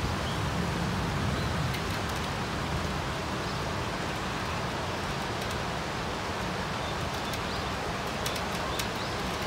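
Steady hiss of falling rain, with a few sharp ticks near the end.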